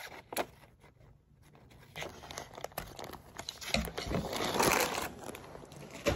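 Plastic wrapping around a cotton mop head crinkling and rustling as the mop is squeezed and a cotton strand is pulled out of it, loudest about two-thirds of the way through. A sharp click comes near the start and another near the end.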